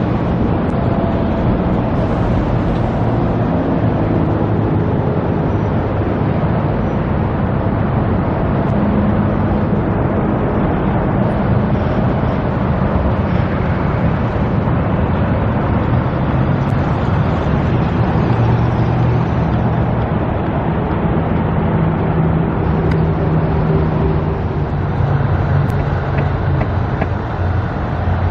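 Steady road traffic and engine noise with a continuous low engine hum that shifts in pitch as vehicles pass.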